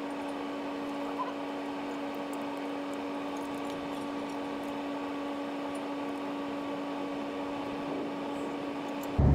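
A steady, even hum on one pitch, with a faint click about a second in.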